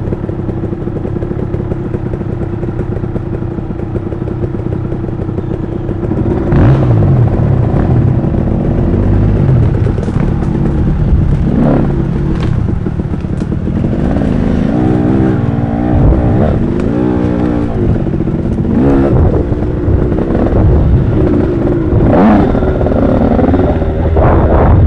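Dirt bike engine running under way, steady for the first few seconds, then louder from about six seconds in, with the revs rising and falling as the throttle is worked. Sharp knocks and clatter come through from the rough ground.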